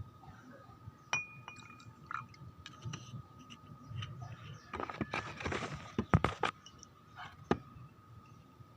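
Glassware clinking and being handled, with a few sharp knocks. A noisy rush lasts about a second and a half around the middle, and the loudest knocks come about six seconds in.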